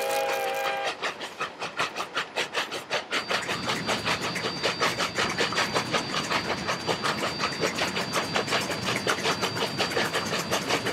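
D&RGW K-36 #487, a three-foot-gauge 2-8-2 Mikado steam locomotive, working hard: its multi-note steam whistle cuts off about a second in, leaving fast, rhythmic exhaust chuffs. From about three seconds in the chuffs are heard close up from on the locomotive itself, with a steady high whine alongside.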